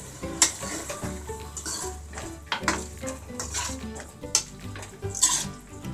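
Metal spatula stirring, scraping and knocking against a steel kadhai of thick sauce, with sizzling as water just poured into the hot pan cooks in. There are several sharp clinks of metal on metal.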